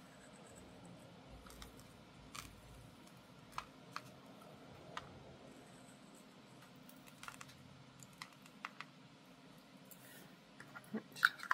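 Sparse light clicks and ticks at irregular intervals from coarse ground salt crystals being placed and dropped onto a watercolour painting, with a small flurry of clicks near the end.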